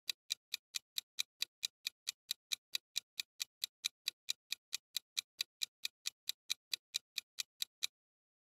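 Countdown-timer ticking sound effect: a steady run of sharp clock ticks, about five or six a second, that stops near the end as the countdown runs out.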